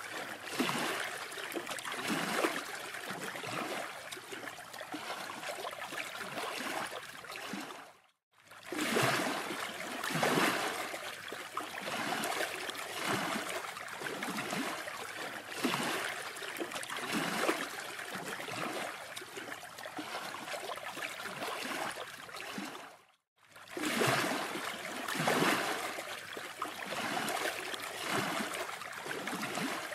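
Wind and surf noise on a phone microphone at the beach, with regular footsteps on sand about once a second. The sound cuts out completely twice, briefly.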